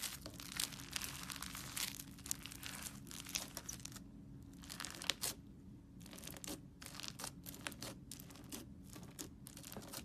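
Slime being worked by hand, air bubbles in it popping as a dense run of small crackling clicks, with a brief lull about four seconds in.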